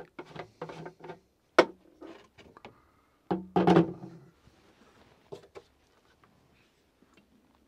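Clicks and plastic knocks as the screw cap comes off a diesel heater's plastic fuel tank and a funnel is fitted into the filler neck. The loudest is a sharp click about a second and a half in, followed by a louder cluster of knocks and rubbing around three and a half seconds.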